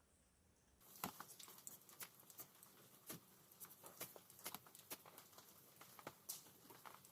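Wood campfire crackling: irregular sharp pops and clicks over a light hiss, starting suddenly about a second in.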